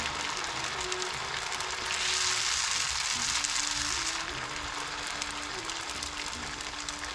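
Hot oil sizzling in a frying pan as the kokis mould heats in it, with a stronger hiss for about two seconds in the middle. Soft background music plays a slow melody of held notes.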